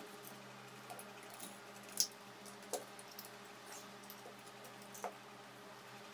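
Handling and fitting together the plastic and metal parts of a handheld camera gimbal: a few sparse clicks and knocks, the loudest about two seconds in, over a steady low hum.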